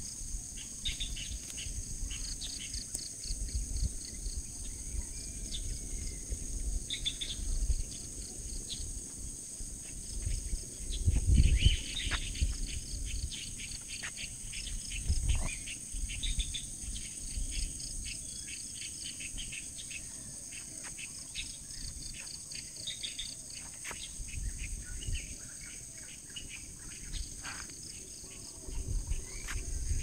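Chorus of insects, a steady high-pitched drone, with birds chirping over it now and then. Low rumbles on the microphone come and go, loudest about a third of the way in.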